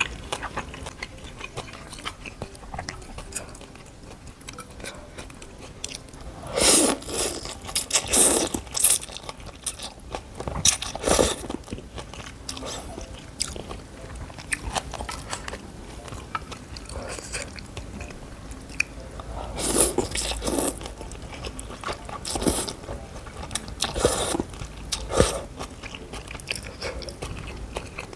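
Close-miked eating sounds from a meal of rice noodle soup and fried spring rolls: steady chewing, broken by several louder, sharper mouth noises spaced through.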